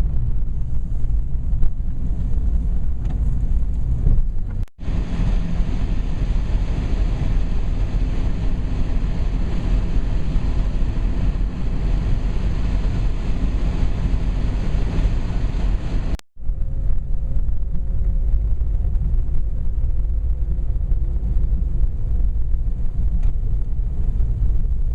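Wind buffeting the microphone over steady vehicle road noise, with two abrupt cuts in the sound.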